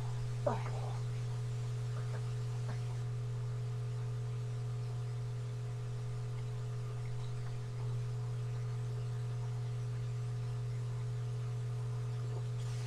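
Steady low electrical hum with a few faint steady higher tones above it. A brief faint sound comes about half a second in.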